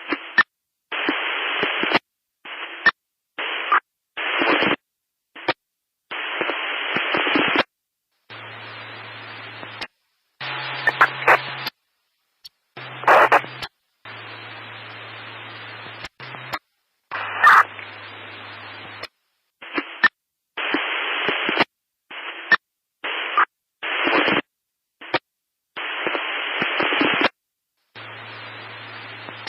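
Static noise: a hiss that cuts in and out abruptly in blocks of varying length, from a fraction of a second to about two seconds, with silent gaps between. Some quieter stretches carry a steady low hum, and a few sharp crackles stand out.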